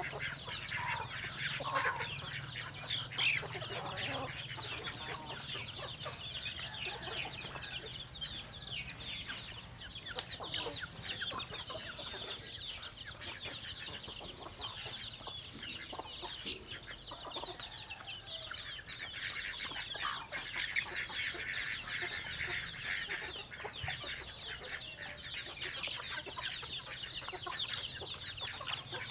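A flock of chickens clucking, with many short, high chirps overlapping throughout.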